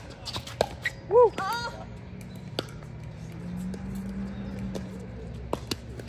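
Pickleball paddles hitting the plastic ball, a few sharp pops in the first second, then a short, loud voice exclamation as the rally ends. A few more scattered paddle pops follow near the end.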